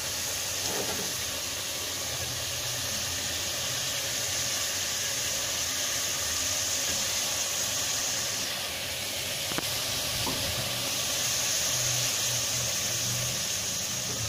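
Chicken and spice masala frying in oil in a pot: a steady sizzle that eases for a couple of seconds just past the middle.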